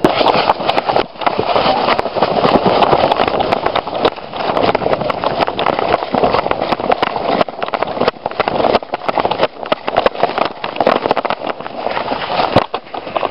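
Close rustling and crunching of someone moving through dry leaves and brush, with many small snaps and cracks of twigs. There is a brief dip about a second in and another near the end.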